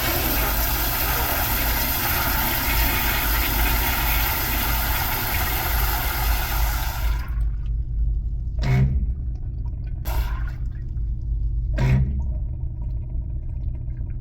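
Zurn commercial flushometer flush valve flushing a toilet: a loud rush of water that cuts off suddenly about seven seconds in, the horrible sound in the wall that users complain of. Three short knocks follow in the next five seconds, with a low rumble underneath throughout.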